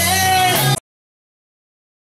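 Live rock band playing, with a woman singing a held note over drums, bass and guitar; the music cuts off suddenly less than a second in.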